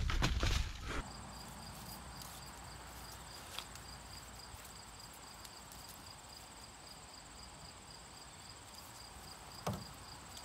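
Insects chirring, a thin high steady trill with a faster pulsing one under it. About the first second holds a burst of low rumbling noise, and there is a soft thump near the end.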